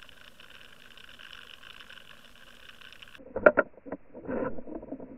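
Muffled underwater camera audio: a faint steady whine, then from about three seconds in a few sharp knocks and thuds as a striped bass strikes near the trolled lure.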